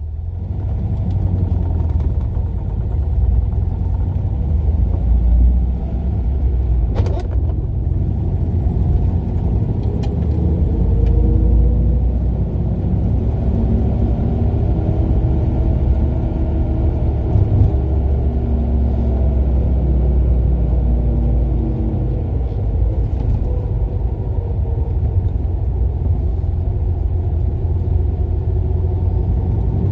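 Nash Metropolitan's small four-cylinder engine running under way, heard from inside the cabin with road rumble; the engine pitch rises and falls as the car speeds up and slows. A single sharp click about seven seconds in.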